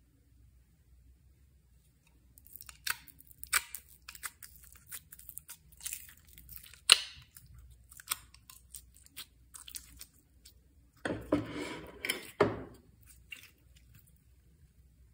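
Sharp crackles and clicks of slime ingredients and containers being handled for mixing into slime, with a longer crunchy rustle about eleven seconds in.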